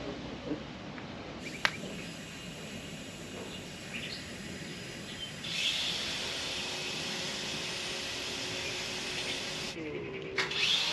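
Tube polisher working a welded stainless-steel tube, a steady abrasive hiss that sets in about halfway through, with hangar background noise.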